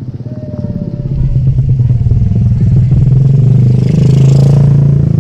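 Motorcycle engine running close by, growing louder over the first few seconds and loudest about four seconds in.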